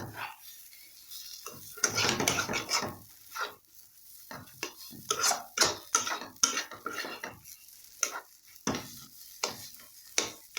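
Stirring and scraping a mashed-potato filling around a kadai as it fries in mustard oil, with a light sizzle. One longer scrape comes about two seconds in, then a run of quick, uneven strokes.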